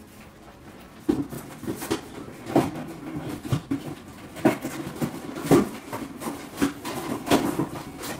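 Metal box grater shredding a block of mozzarella into a mixing bowl: repeated short scraping strokes, irregular, about one a second.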